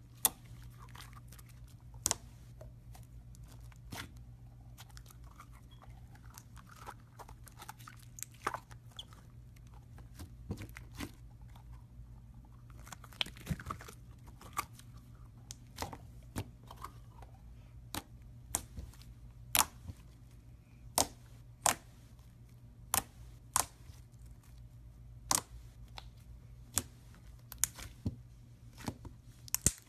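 Thick white slime being poked and pressed by fingers, popping in sharp, separate clicks as trapped air escapes: scattered at first, then about once a second through the second half, over a faint low hum.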